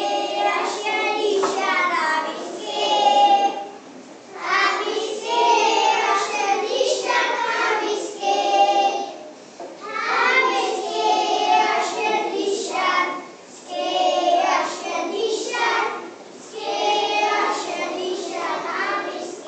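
A group of young children singing together in unison, in phrases of a few seconds with short breaks between them.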